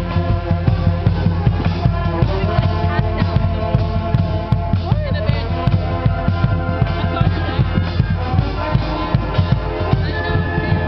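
Brass band of saxophones, trumpets, trombones and sousaphones playing a tune over a steady drum beat.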